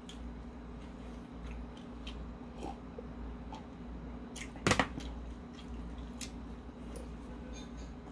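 Close-up chewing and wet mouth sounds with small scattered clicks, from eating a leaf-wrapped bite of bulgogi. A little under five seconds in, a single sharp knock of a glass being set down on the table.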